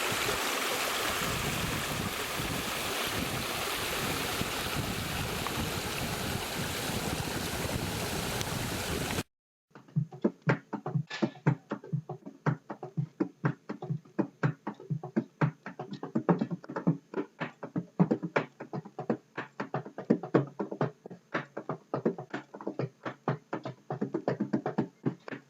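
Rushing water from a waterfall cascade, a steady full roar for about nine seconds. It cuts off abruptly, and after a brief gap it gives way to music made of fast, busy percussive hits.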